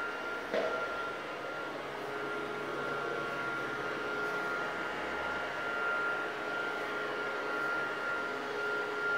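Battery-powered air hover soccer ball's fan running with a steady whirring hum and a steady high whine. One knock about half a second in.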